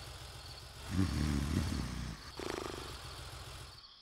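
Cartoon vehicle engine sound effect: a low idle that swells into a louder revving with wavering pitch about a second in, then a higher buzzing tone, as a vehicle pulls away. Crickets chirp faintly behind it.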